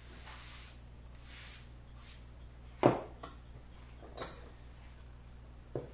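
Hand sweeping wood shavings across a workbench with a soft brushing hiss, then a sharp knock about three seconds in as the metal block plane is set down on the bench, followed by two lighter knocks of the wooden workpiece being handled.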